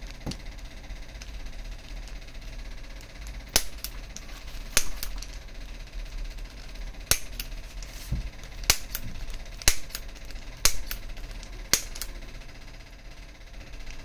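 Manual spring-loaded chiropractic adjusting instrument (300N stainless-steel spine adjustor) firing: about ten sharp snaps of its spring-driven plunger, spaced irregularly between roughly three and a half and twelve seconds in, with a dull low thump near the middle.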